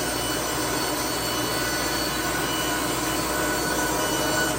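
Baker band sawmill running, its blade sawing steadily through a log cant: an even, unbroken cutting sound.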